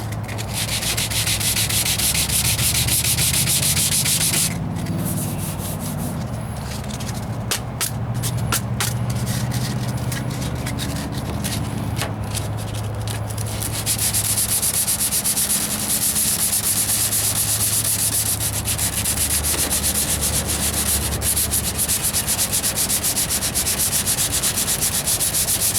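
Sandpaper rubbed by hand over the filler primer on a truck's steel wheel arch in quick back-and-forth strokes. This is finish sanding with fine 320-grit paper to take out the coarser scratches before paint. The strokes run steadily for about four seconds, come in short broken runs through the middle, then go on continuously from about halfway.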